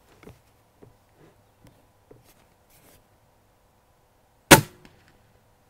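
A Diana AR8 .22-calibre spring-piston break-barrel air rifle fired once, about four and a half seconds in: a single sharp report with a short tail. A few faint ticks come before it.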